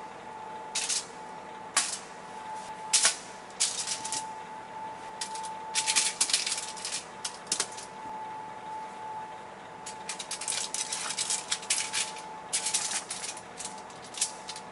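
Aluminium foil on a sheet pan crinkling and crackling as lemon slices are pressed down onto it: single crackles first, then two longer bursts of dense crinkling. A faint steady high hum runs underneath.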